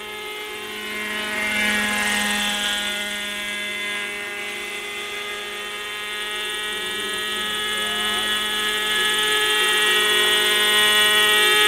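Hirobo Shuttle radio-controlled model helicopter flying, its small two-stroke glow engine and rotor giving a steady high-pitched whine. The pitch shifts briefly about a second or two in, and the sound grows louder toward the end.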